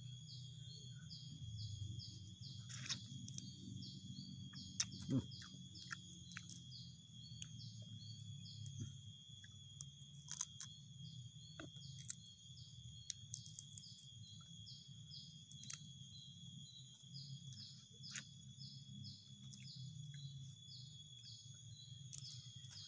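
Faint outdoor ambience: runs of short high chirps, a few a second, over a steady high-pitched insect drone and a low background rumble. A few soft clicks come through, from handling and eating the fruit.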